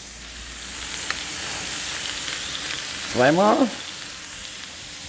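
Thin strips of raw roast beef, bacon and cheese-topped burger patties sizzling on a hot flat-top griddle. The steady hiss swells a little in the first second or so, with a light click about a second in.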